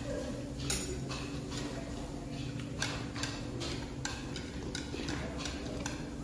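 Small metal pick clicking and scraping against a raw egg's shell as fragments are picked off the membrane: irregular light clicks, about one or two a second, over a steady low hum.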